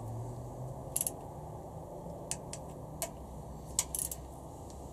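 Torque wrench with a socket being worked on the small 10 mm camshaft cap bolts of a Honda B18C4 cylinder head, giving a few scattered sharp metal clicks, with a quick cluster near the end.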